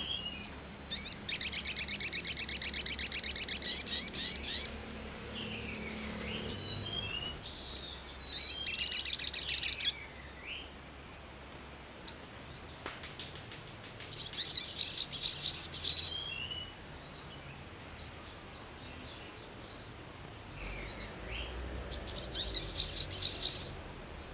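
Male olive-backed sunbird (sogon) singing: four bursts of a very fast, high-pitched trill, each two to three seconds long, with short sharp chips between them.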